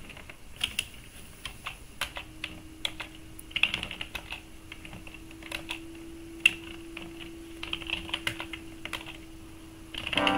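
Typing on a computer keyboard: irregular single keystrokes and quick runs of keys. A faint steady hum sits underneath from about two seconds in.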